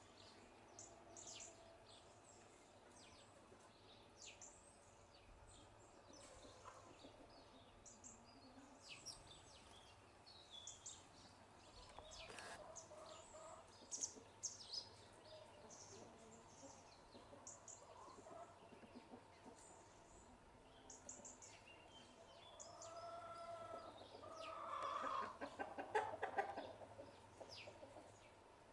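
House sparrows chirping faintly, short high notes scattered throughout. Near the end a louder, lower call of several repeated notes rises over them.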